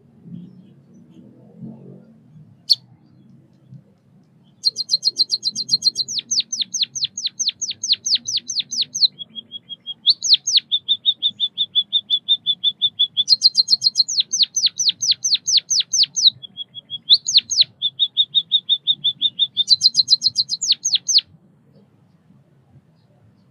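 White-headed munia singing a long song of rapid repeated chirps, about seven notes a second: stretches of sharp down-slurred notes alternate with a lower, even trill. It starts about four or five seconds in and stops about two seconds before the end.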